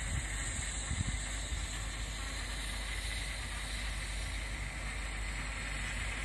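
Steady low rumble and hiss of a parked Class 57 diesel locomotive idling, with a faint low thump about a second in.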